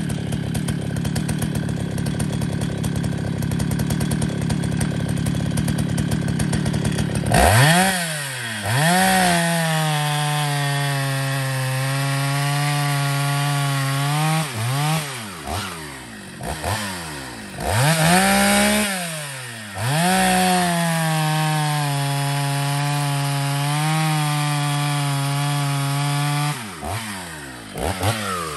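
Vintage Jonsered 920 two-stroke chainsaw, its high-speed mixture just leaned out a notch, bucking hardwood. It revs sharply to full throttle, then pulls down to a steady lower pitch in the cut for several seconds, twice, with a few short revs near the end. The owner judges the tune maybe a little lean, but with the power to pull through the cut.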